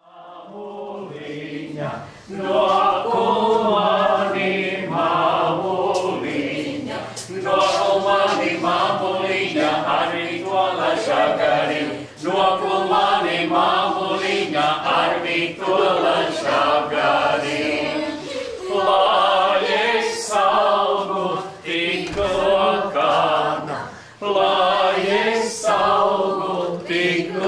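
A group of voices singing a Latvian folk song unaccompanied, in short phrases with brief breaths between them. It starts quietly and swells to full voice about two seconds in.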